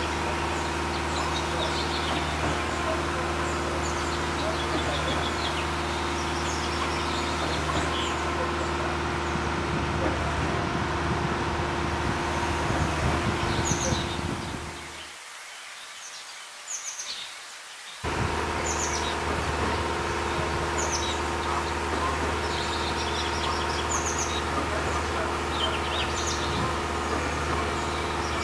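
Birds chirping in short, high-pitched calls scattered throughout, over a steady background hum. The sound drops away for about three seconds around the middle, then returns.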